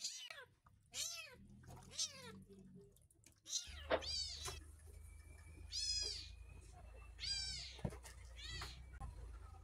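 Young kitten meowing over and over while being bathed and towel-dried: about eight high-pitched cries, roughly one a second, each falling in pitch.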